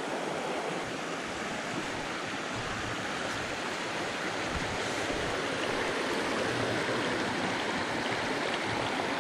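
Small rocky creek rushing steadily over shallow riffles and a little cascade.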